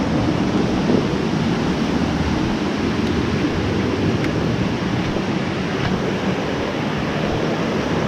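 Steady rush of water running through creek rapids and fast current.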